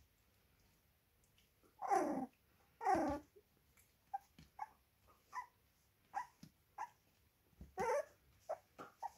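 25-day-old puppies play-fighting: two loud yelping cries about two and three seconds in, each falling in pitch, then a string of short high yips, with another loud cry near the end.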